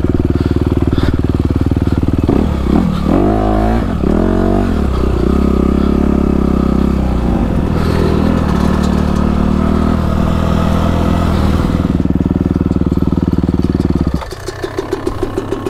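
Dirt bike engine running loud under the rider as it works along a rough trail, the revs rising and falling a couple of seconds in, then holding steady. About fourteen seconds in it drops to an even, pulsing idle as the bike stops.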